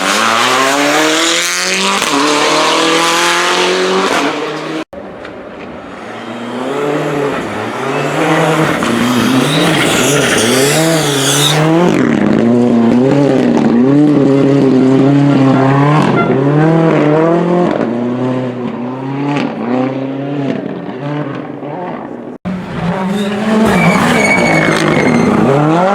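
Rally car engines revving hard, their pitch rising and falling again and again through gear changes and lifts of the throttle, heard in three separate clips joined by abrupt cuts about five seconds in and near the end.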